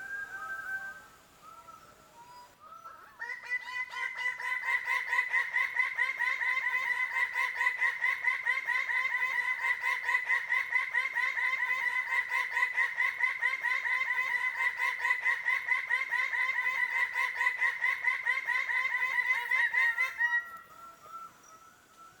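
Male greater birds-of-paradise calling in display: a few scattered notes, then about three seconds in a loud, fast run of harsh repeated calls at one pitch. It keeps going until it stops suddenly near the end.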